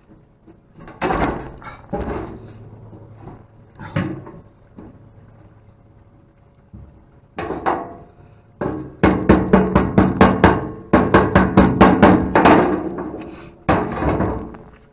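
Rapid metal-on-metal knocking against the concrete mixer's sheet-steel switch housing, about four blows a second for several seconds in the second half, after a few single knocks, as the broken switch is knocked out of its mounting.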